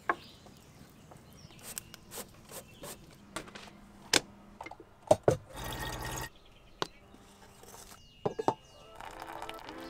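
Water dripping and trickling in scattered sharp drops, with a short rush of pouring just after halfway. Music comes in near the end.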